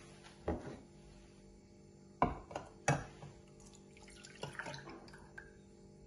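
A saucepan set down on a stone board with a few sharp knocks, then milk poured from a mug into the pan, splashing and frothing for about two seconds.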